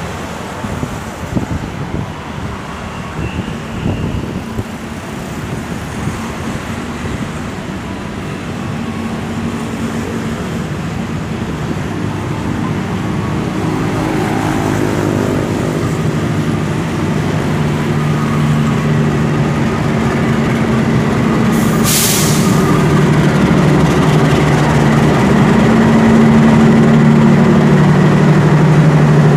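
CC 206 diesel-electric locomotive hauling a passenger train, its low engine drone growing steadily louder as it approaches and comes alongside. A brief sharp hiss sounds about three-quarters of the way through.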